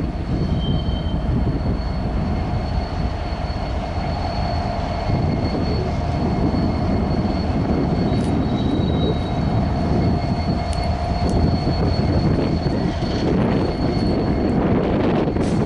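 Freight train cars rolling past, a steady heavy rumble with a thin, steady high-pitched whine over it and a few faint clicks.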